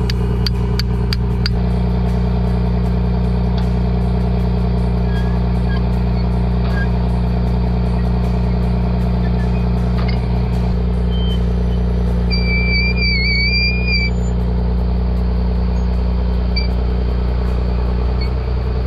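An engine idling steadily with a low, even hum. A few light clicks sound in the first second and a half, and a brief wavering whistle-like tone comes about two-thirds of the way through.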